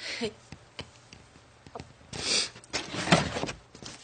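A handheld camera being dropped and picked up again: scraping and rustling handling noise on the microphone, with several knocks, the loudest about three seconds in.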